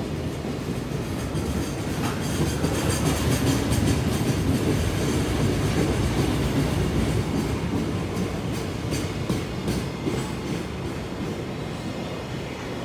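Empty JR Freight Koki container flatcars rolling past at speed, a steady rumble of wheels on rail with a quick run of wheel clicks over the rail joints near the end.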